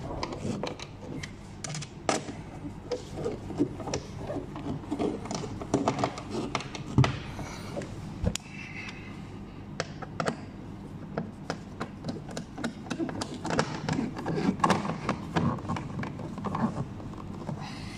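Irregular clicks, taps and knocks of hands working plastic parts of the cabin air filter housing and trim, with rustling in between and one sharper knock about seven seconds in.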